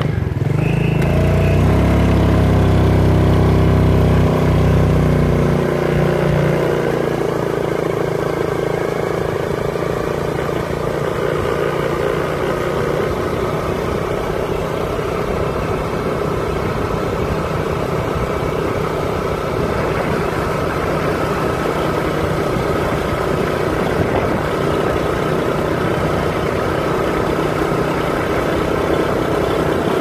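A vehicle engine running steadily, with a heavy low rumble in the first six seconds or so that then eases.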